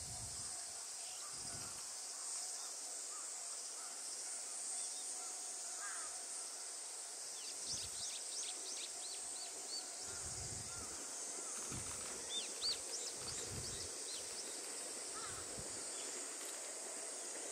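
Summer countryside ambience: a steady high drone of insects, with birds chirping in short runs about a third and two-thirds of the way in. Gusts of wind rumble on the microphone now and then.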